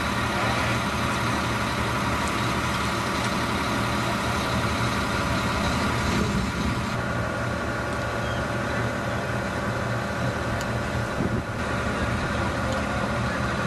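A large motor running steadily: an even mechanical drone with several held tones.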